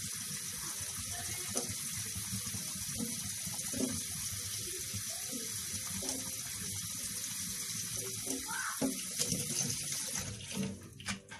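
Soaking water draining out of an upturned plastic bottle of cracked green olives into a stainless steel sink, a steady pouring that stops near the end. It is the first draining of the olives' water, part of curing them.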